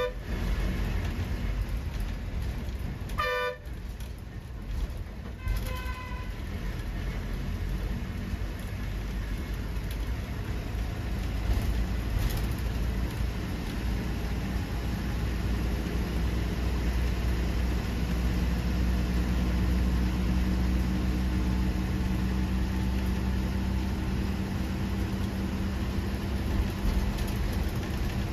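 Bus engine and road noise, a steady low rumble, with a vehicle horn tooting briefly twice, about three and six seconds in. The rumble grows a little louder in the second half.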